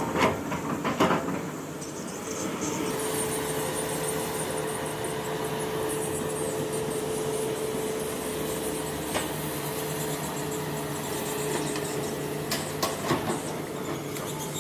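Excavator's engine and hydraulics running steadily, with a held whining tone through the middle. A few sharp knocks come about a second in and again near the end.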